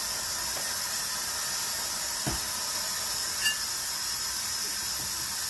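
A steady hiss, with a soft thump about two seconds in and a light clink about a second later.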